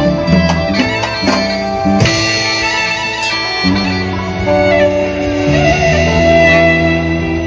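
Instrumental music from a nang talung (southern Thai shadow-puppet) troupe's band: a melody of held notes moving in steps, with a few sharp percussion strikes in the first half.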